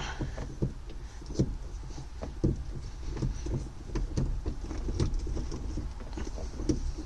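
Factory plastic shift knob being twisted off the threaded shift lever by hand, counterclockwise and through many turns: irregular light clicks and rubbing as the hand grips and turns it.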